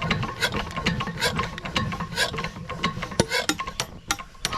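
Irregular metallic clicking and clattering, several knocks a second, from a 10 hp diesel water-pump engine being hand-cranked in a hard start.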